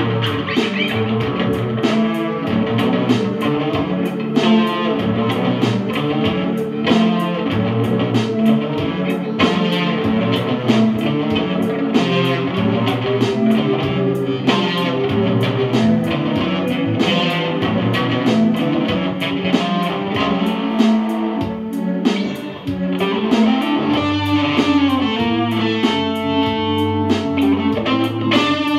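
Electric guitar played through a small combo amp together with a Casio electronic keyboard: a live two-instrument jam in a steady rhythm, with no drums.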